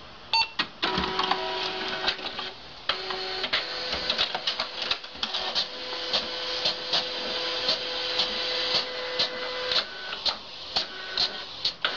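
Printer running: a steady motor whine with frequent sharp mechanical clicks, two or three a second.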